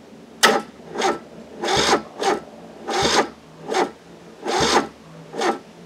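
Kubota Z482 two-cylinder diesel being cranked by its starter, turning over slowly in about eight labouring pulses, one every two-thirds of a second, without firing. It cranks this sluggishly because the jump-pack clips only rest on the small battery terminals and lose a lot of voltage.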